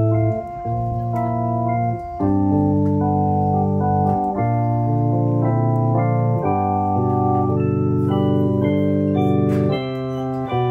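Organ postlude: held chords that change every second or so, with short breaks between phrases.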